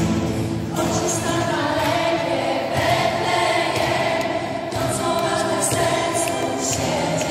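Children's choir singing a Polish Christmas carol (kolęda) over instrumental accompaniment.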